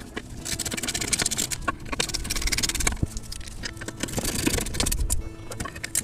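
Wrenches working the ball-joint bolt on a Mercedes W211's upper control arm, with rapid metallic clicking and scraping of steel on steel, in two spells.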